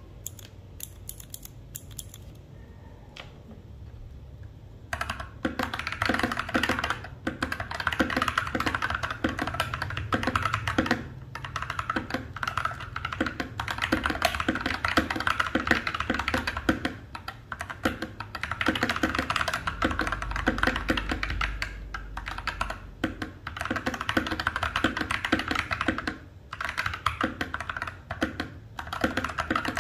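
Fast typing on a mechanical keyboard fitted with Kon Momo PBT dye-sublimation keycaps: a few scattered key clicks, then a dense, fast clatter of keystrokes from about five seconds in, with short pauses.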